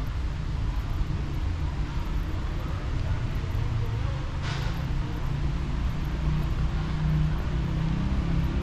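Steady low rumble of city traffic from the surrounding streets, with a brief hiss about four and a half seconds in.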